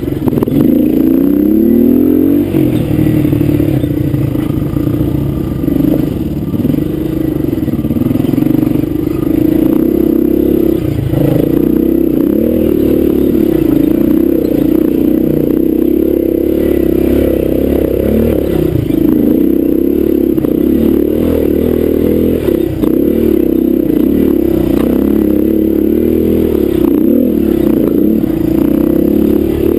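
Honda dirt bike engine running hard as the bike is ridden along a rough dirt trail, its revs rising and falling constantly as the throttle is worked.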